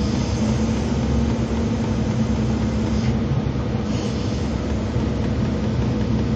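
Diesel engine and hydraulics of a 75-ton Tadano rough-terrain crane running steadily, heard from inside the operator's cab while the main winch is run.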